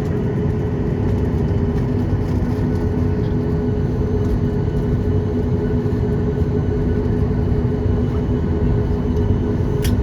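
Steady mechanical rumble with a constant hum, with a single sharp click near the end.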